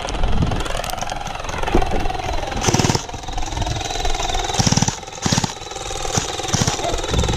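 Gel blasters firing on full auto: several short, rapid buzzing bursts of the electric gearbox cycling, the first about three seconds in and the rest close together after it.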